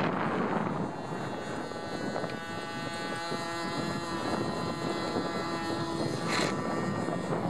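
Radio-controlled model aircraft's motor and propeller running steadily at high power during its take-off run along the runway, with wind on the microphone.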